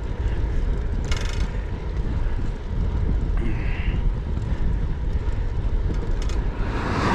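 Wind buffeting the microphone of a camera on a moving bicycle, a steady low rumble, with a brief clicking burst about a second in.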